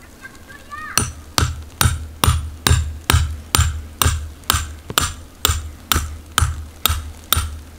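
A metal tent stake being driven into snow-covered ground with a hammer: about fifteen sharp, ringing strikes at a steady two a second, starting about a second in.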